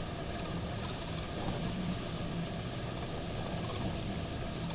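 Steady rumbling noise of strong wind buffeting a car, heard from inside the car, with a low steady hum underneath.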